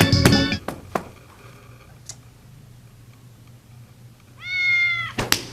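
A house cat gives one short, level-pitched meow near the end, after a stretch of quiet with a few light clicks. Organ music cuts off just after the start.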